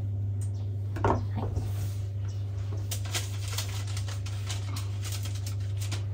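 Knife cutting through a rolled bread-dough log on a board: a soft scrape about a second in, then a run of light clicks and taps over the last few seconds, with a steady low hum underneath.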